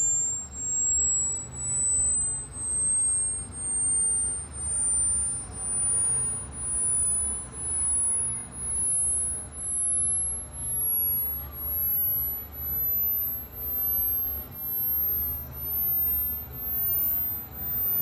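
A pure, high-pitched test tone gliding steadily upward in pitch, from about 7,500 Hz to about 14,000 Hz, and swelling and fading about once a second. It is a hearing-age test sweep: the higher it climbs, the younger the ears that can still hear it.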